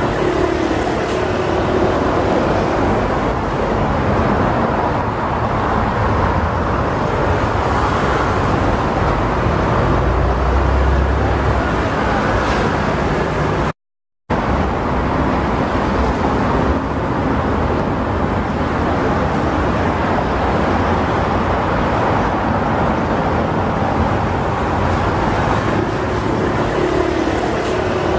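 Steady airport apron noise: a continuous roar of aircraft engines and ground traffic. It cuts out completely for about half a second halfway through.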